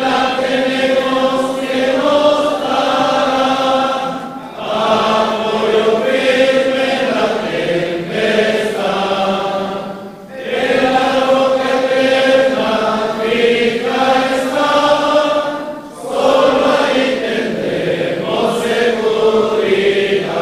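A group of voices singing a slow hymn in long held notes. The singing falls into phrases, with a short break for breath about every six seconds.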